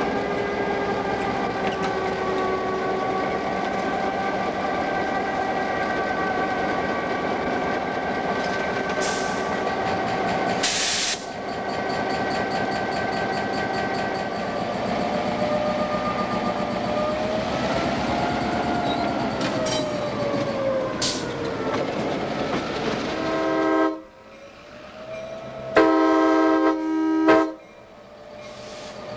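EMD GP9 diesel-electric locomotive's two-stroke V16 engine running steadily as the unit rolls slowly past, with a short hiss about eleven seconds in. Near the end the engine sound drops away and the locomotive's multi-chime air horn sounds one blast of about a second and a half.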